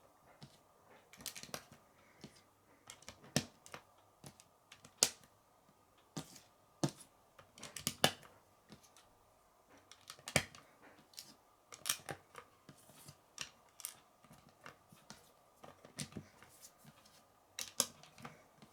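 Plastic Lego pieces clicking and tapping as they are handled and pressed together: irregular sharp clicks, a few a second, some louder snaps among them.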